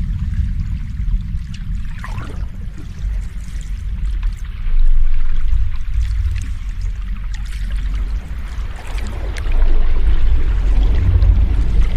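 Sea waves washing ashore: a steady deep rumble of surf with hiss above it, swelling louder about five seconds in and again near nine seconds as waves break.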